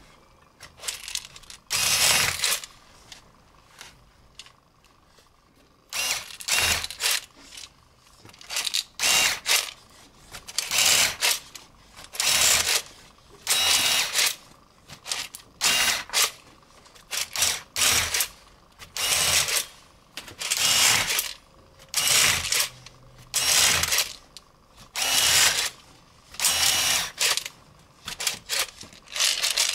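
Electric screwdriver with an automatic screw-feeder attachment working in short bursts: one burst, a pause of a few seconds, then a steady run of bursts about every second to second and a half as screws are fed through.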